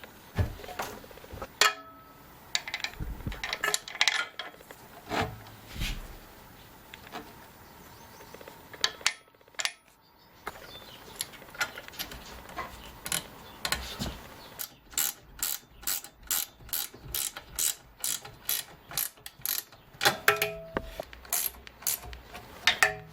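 Hand ratchet wrench clicking as bolts are tightened. It goes in irregular strokes at first, then in a steady run of about three clicks a second, with scattered metal knocks and clinks between.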